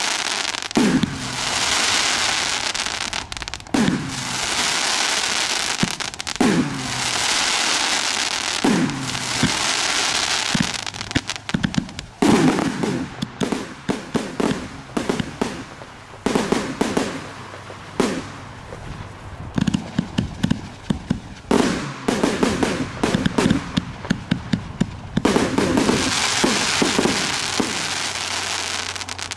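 Firework cake (TB201, 288 shots) firing. For the first ten seconds a shot goes up about every two and a half seconds, each followed by a second or two of crackling hiss from the bursts. From about twelve seconds in comes a faster run of quick, sharp shots, then another long crackling hiss near the end.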